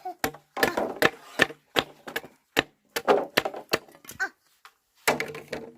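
Repeated sharp knocks on wood, irregular at about two or three a second: wood being chopped or hammered.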